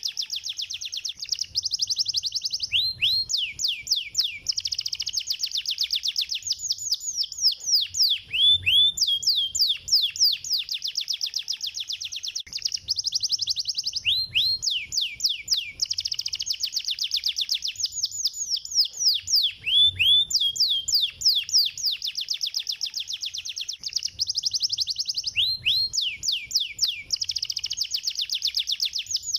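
Domestic canary singing: long, fast trills of rapidly repeated down-slurred notes, broken by short pauses and a few lower swooping notes every few seconds.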